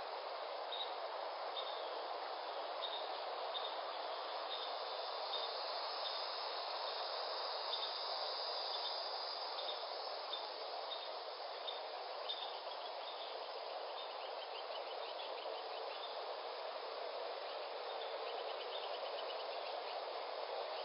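Insects chirping in a regular rhythm, about one short high chirp every two-thirds of a second, with fainter rapid trills joining later, over a steady rushing background noise.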